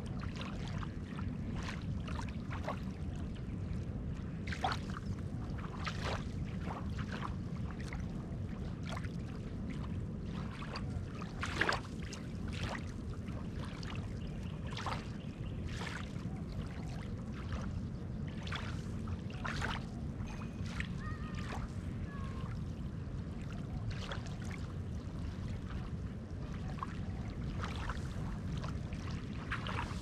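Small wavelets of a calm sea lapping at a sandy shoreline: many small, irregular splashes and trickles over a steady low wash.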